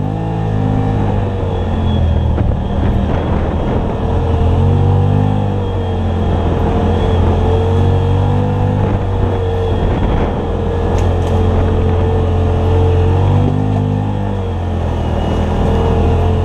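Side-by-side UTV's engine running while driving slowly on a dirt trail, its revs rising and falling a few times, with a whine that wavers along with the engine.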